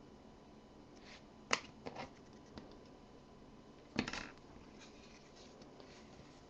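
Basketball trading cards being handled and set down on a stack on a desk: a few short flicks and taps, the loudest about four seconds in.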